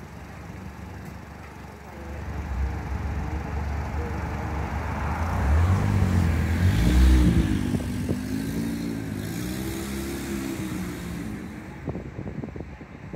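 A motor vehicle passing by: its engine grows louder to a peak about seven seconds in, with its pitch rising and falling, then fades away. A few short clicks come near the end.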